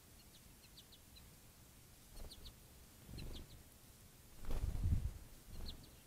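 Short, sharp, high chip calls from a songbird, in small clusters of two to four, repeated several times. Soft low rumbles come in between, the loudest a little past the middle.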